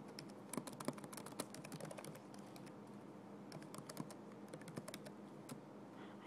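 Typing on a keyboard: quick, uneven runs of faint key clicks with short pauses between them.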